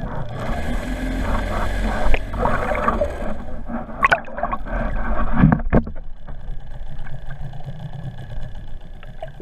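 Muffled water rush and low rumble heard through a GoPro's underwater housing towed behind a trolling boat. There are a few sharp knocks and splashes about four and five and a half seconds in as the camera churns near the surface, and the sound drops to a quieter steady rumble after about six seconds.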